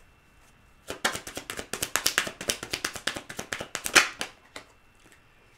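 A deck of cards shuffled by hand: a quick run of card clicks and slaps starting about a second in, with one louder slap about four seconds in.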